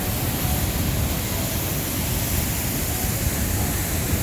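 Waterfall pouring into the pool at its base: a steady, unbroken rush of falling water.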